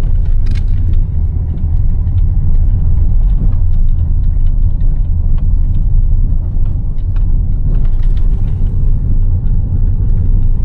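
Loud, steady low rumble with faint scattered clicks.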